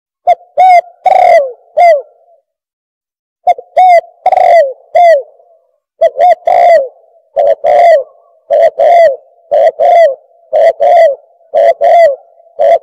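Spotted dove calling: loud phrases of short, down-curving coos, three or four notes each with one longer note. After two phrases with a second's pause between them, the coos repeat steadily without a break. It is a recorded call, played to lure doves in.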